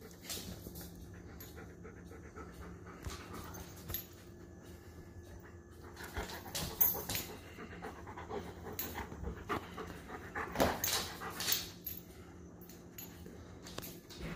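Dog panting close by in quick breathy puffs, louder in a few stretches around the middle, over a faint steady low hum.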